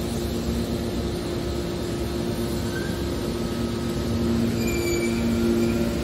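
Hydraulic power unit of a scrap metal baler running: a steady hum with a pump whine that grows louder about four and a half seconds in, and a few faint high metallic squeaks.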